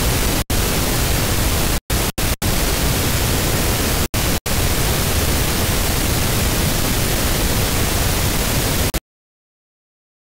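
Static hiss of an untuned television, an even full-range rush of noise broken by several short dropouts in the first few seconds. It cuts off suddenly about nine seconds in, leaving dead silence.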